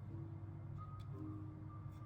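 Background music of slow, held notes over a steady low drone, with a few faint clicks.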